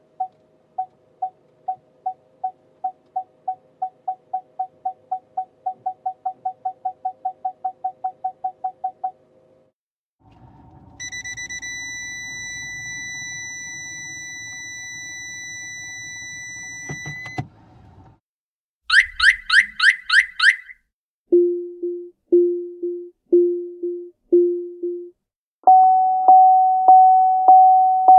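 A run of different car warning alerts one after another: pitched beeps that start slow and speed up to a rapid series, then a steady high tone for several seconds, a quick burst of high beeps, five low beeps, and finally a chime repeating a little over once a second.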